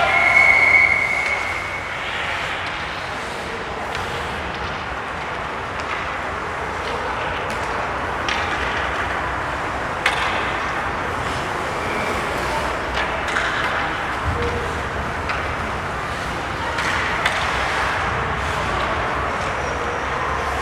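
Ice hockey arena ambience: a steady wash of skates scraping the ice and crowd noise, with scattered sharp clacks of sticks and puck. A high, steady whistle blast sounds for about a second at the start.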